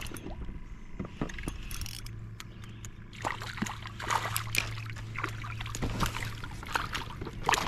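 Water splashing and dripping, with small clicks and knocks, as a hooked crappie is brought up out of the water to the kayak; the splashing grows busier about three seconds in.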